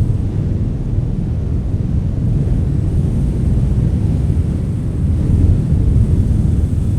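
Strong wind blowing, heard as a steady low rumble that swells a little about five seconds in.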